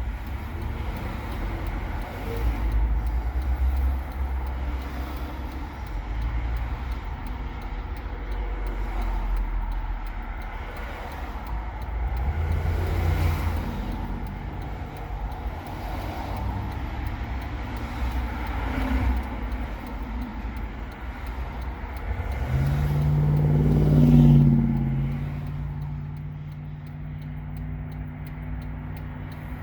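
Road traffic: a steady low engine rumble with several vehicles going by. The loudest passes about three quarters of the way through with a rising engine note, leaving a steady hum afterwards.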